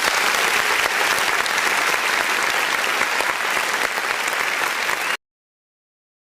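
Crowd applause: many people clapping in a dense, steady patter that cuts off suddenly about five seconds in.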